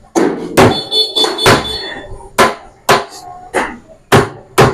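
A hammer striking plywood, about ten sharp, unevenly spaced blows, each ringing briefly.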